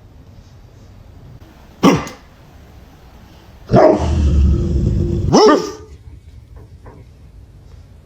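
A German Shepherd puppy barking: one short bark about two seconds in, then a longer drawn-out sound from about four seconds ending in a second bark.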